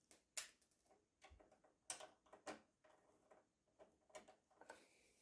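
Faint, scattered clicks and taps of a CPU cooler and its fittings being handled and seated during a PC build, about four sharper ones among smaller ticks, with a short soft rustle near the end.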